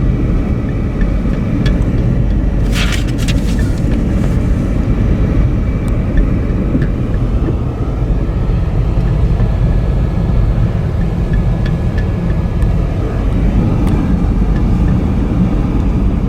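Steady road and engine rumble of a car driving, heard from inside the cabin, with a brief hiss about three seconds in.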